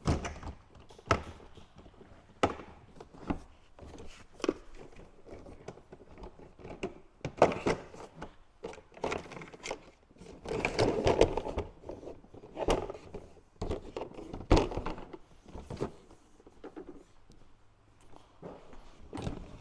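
Agras T40 spray-drone tank being pulled out of its bay and handled: irregular knocks and clunks of the tank against the frame, with a louder stretch of handling noise about halfway through.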